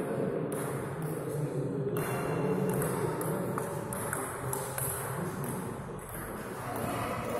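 Table tennis ball strikes: repeated sharp pings and clicks of the ball off rubber-faced bats and the table, coming at an irregular rally pace.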